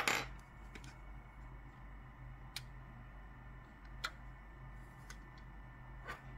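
A few sharp, separate clicks from handling a Logitech MX Master mouse during repair: a louder click with a short scrape at the start, then single clicks every second and a half or so, over a faint steady hum.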